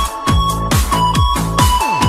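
Electronic dance music with a fast, steady kick-drum beat and a synth lead line stepping between notes.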